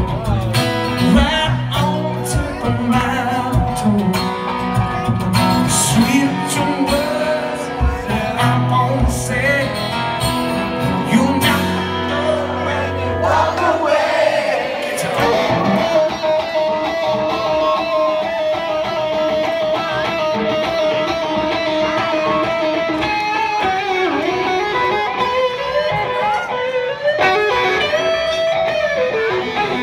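Live solo electric guitar played through an amplifier, chords and low notes in the first half, then a lead line of held notes that bend up and down through the second half.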